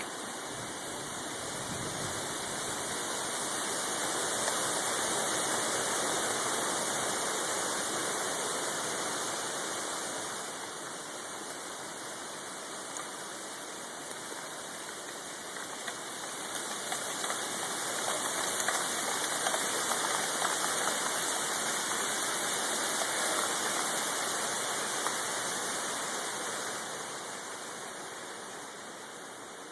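Strong wind in a windstorm with gusts of up to 75 mph. It rushes steadily, swelling in two long gusts, the first in the opening seconds and the second past the middle, and eases off near the end.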